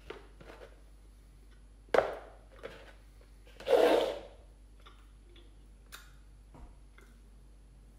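A cardboard fried-chicken bucket being handled as a hand rummages in it for a piece: a sharp knock about two seconds in, then a short, louder rustle, with a few small clicks around them.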